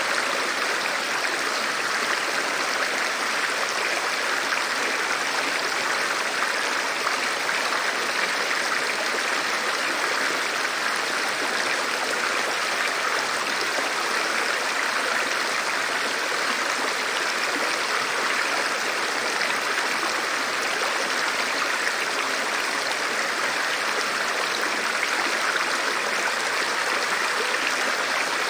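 Flowing river water rushing steadily, an even hiss with no single drops or splashes standing out.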